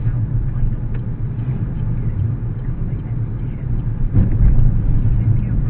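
Steady low rumble of a car's engine and tyres heard from inside the cabin through a dash cam's built-in microphone, with a louder bump about four seconds in.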